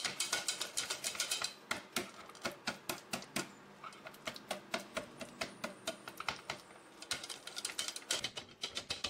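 Wire whisk creaming softened unsalted butter by hand in a stainless steel bowl: rapid, uneven clicking as the wires strike the metal sides.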